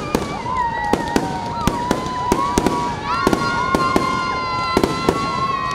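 Aerial fireworks going off in quick succession: many sharp bangs and crackles at irregular intervals, over a long, steady whistling tone that gains overtones about halfway through.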